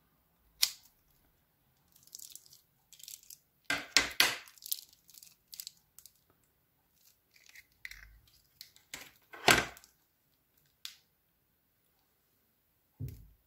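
Scissors snip through the tip of a plastic piping bag about half a second in, then the bag crinkles and rustles in irregular bursts as it is pulled apart to let the slime out, the loudest two about four and nine seconds in.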